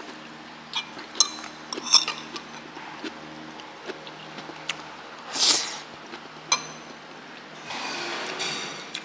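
Spoons and utensils clinking against bowls and dishes during a meal. There are several light clinks in the first two seconds and another at about six and a half seconds, a short loud rushing noise at about five and a half seconds, and a longer noisy stretch near the end.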